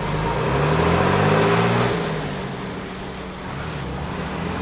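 A car driving past with its engine note rising and falling, loudest about a second in, then easing off.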